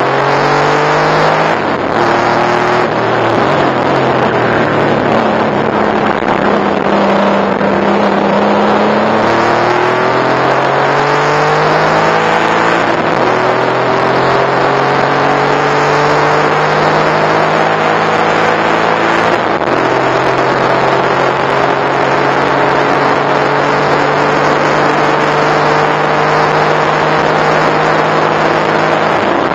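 Porsche 964 Turbo's air-cooled turbocharged flat-six heard from inside the cabin, pulling hard under full throttle. Its pitch climbs steadily and drops at upshifts about 13 and 19 seconds in and again near the end.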